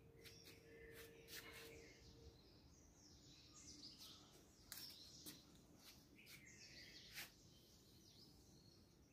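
Faint birds chirping in short gliding calls, with a few sharp clicks scattered through.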